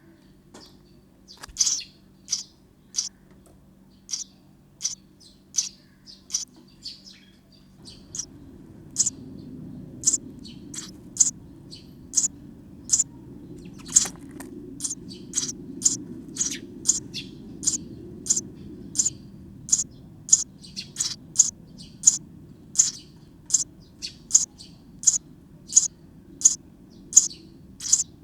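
Sparrow nestlings inside a birdhouse calling to be fed: short, high chirps repeated about one to two a second, coming faster from about eight seconds in.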